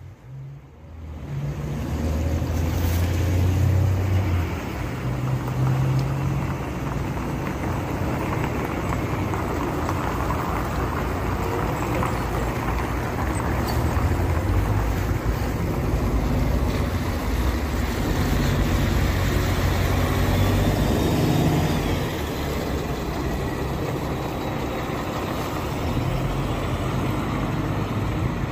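Diesel engine of a NefAZ 5299 city bus pulling away from a stop, its low hum rising and falling, mixed with passing street traffic and wind on the microphone.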